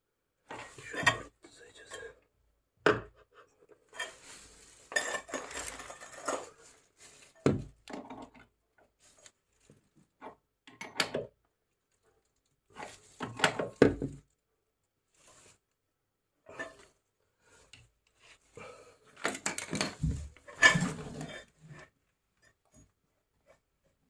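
A metal wrench clinking, clicking and scraping on a chrome angle valve as it is turned onto a threaded water-pipe fitting, in short irregular bouts with pauses between.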